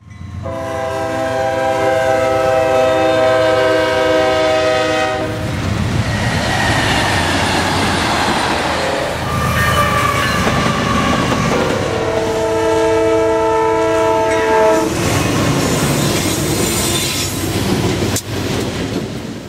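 Diesel freight locomotive air horns sounding a long multi-note chord, then the rumble and wheel noise of a passing freight train, with a brief high wheel squeal near the middle. A second horn blast sounds about twelve seconds in, followed by more train rumble.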